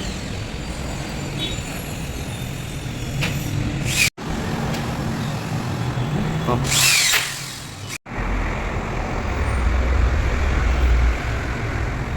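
Power drill running in short spells over steady background noise, with a falling whine about two-thirds of the way through. The sound is broken by two sudden cuts.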